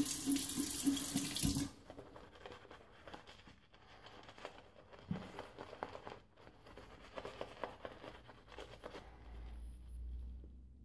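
Bathroom tap running into the sink, cutting off abruptly less than two seconds in; then a shaving brush working thick shaving-soap lather on the face in faint, irregular strokes.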